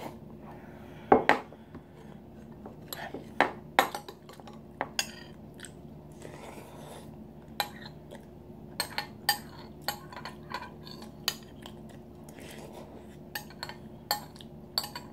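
Metal spoon clinking against a ceramic soup bowl in irregular sharp clicks, with a heavier knock about a second in.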